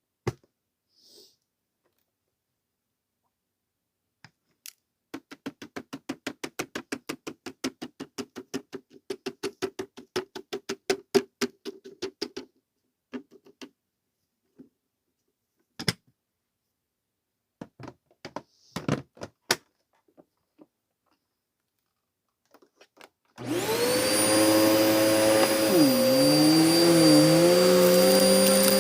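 A quick run of even clicks for several seconds and a few scattered knocks, then about 23 seconds in a Hoover vacuum cleaner switches on and runs with a steady whine, its pitch dipping briefly a few seconds later. The uploader says the vacuum is clogged.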